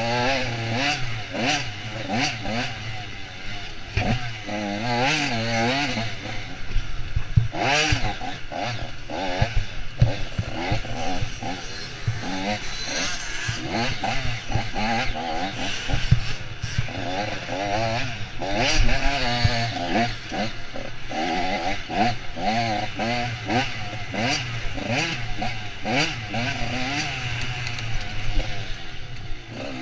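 Off-road dirt bike engine ridden hard, the revs rising and falling constantly through the throttle, with frequent knocks and clatter from the bike over rough ground.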